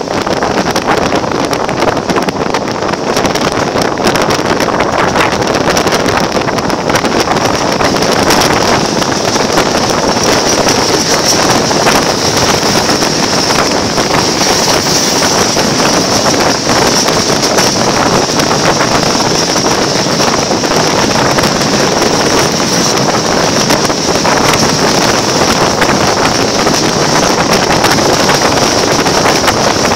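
Wind rushing past an open window of a moving passenger train, mixed with the running noise of the coaches rolling over the rails. A steady high-pitched whine sits over it, strongest in the middle.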